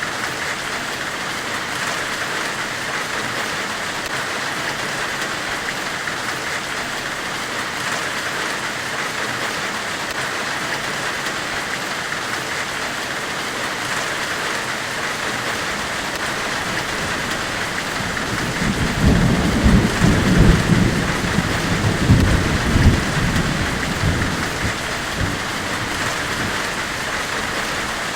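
Steady white-noise hiss, with a deep rolling rumble that swells in about two-thirds of the way through and dies away before the end.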